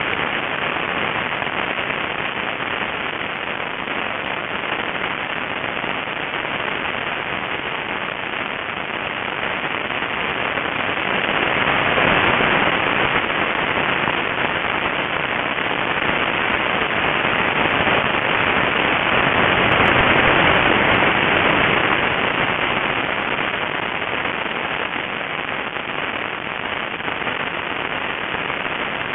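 Wind rushing over the microphone of a small camera mounted on an RC model airplane in flight, a steady rough noise that grows louder around twelve seconds in and again around twenty seconds in.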